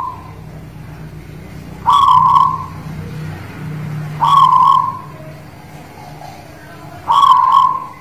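Caged zebra dove (perkutut) of the local Guling Murio type cooing in its song: three short phrases, about two and a half seconds apart.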